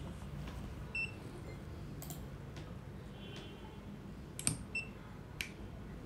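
AR932 coating thickness gauge giving two short high beeps, about a second in and again near the end. Just before the second beep its probe clicks down onto the steel calibration plate, and another click follows as it is lifted.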